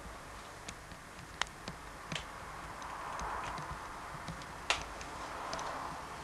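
A few scattered light clicks and knocks over a low steady background hiss, the sharpest knock about two-thirds of the way in.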